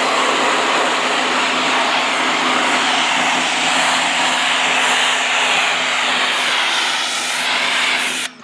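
Greenworks 1900 PSI electric pressure washer running, its motor humming steadily under the loud hiss of the high-pressure water jet spraying the house siding. The sound stops abruptly near the end.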